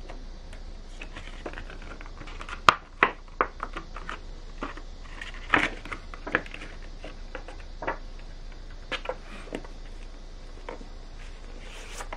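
Stiff clear plastic Blu-ray packaging being handled: a transparent overlay sleeve crinkling and clicking as it is slid off and moved about, in irregular sharp clicks with the loudest a few seconds in, over a steady low hum.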